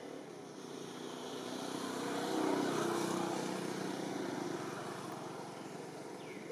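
Engine noise of a passing motor, swelling to its loudest about halfway through and then fading away. A short falling chirp sounds near the end.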